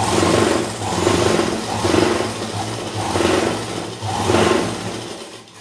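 Durby sewing machine running, stitching a seam down the middle of a fabric strip, with a steady low hum and the running swelling and easing off about once a second.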